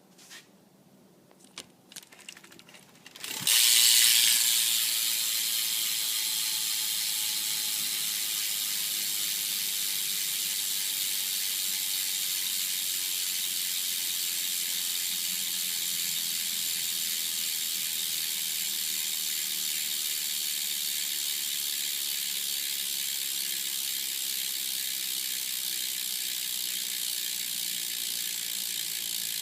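BMX Proper Magnalite cassette rear hub freewheeling: after a few light clicks, the pawls start a loud, fast ratchet buzz about three seconds in, which runs on steadily as the wheel spins.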